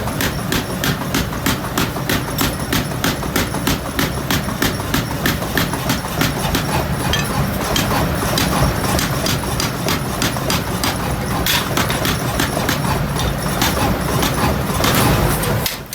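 Hammer blows on metal in a fast, even rhythm, about three to four strikes a second, turning less regular from about halfway through. A steady machine hum runs underneath.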